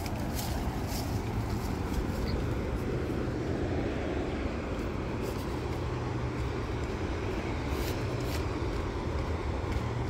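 Steady low rush of ocean surf on a rocky shore, with a few soft footsteps on a dirt trail over it.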